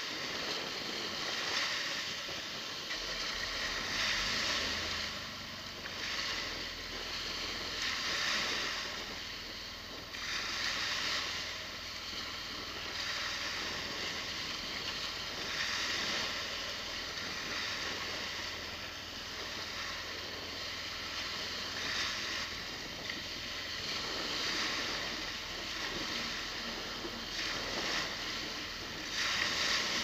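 Small sea waves breaking and washing up the beach, the surf hiss swelling and easing every couple of seconds, over a steady low hum.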